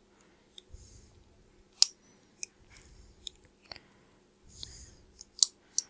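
Small screwdriver clicking and scraping on a stubborn, glued screw in a lens's bayonet mount: about seven irregular sharp clicks, the loudest a little under two seconds in and near the end. Two short puffs of breath come between them.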